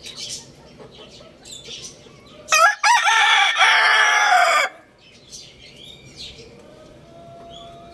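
Rooster crowing once: one loud crow of about two seconds, starting about two and a half seconds in. Faint bird chirps sound before and after it.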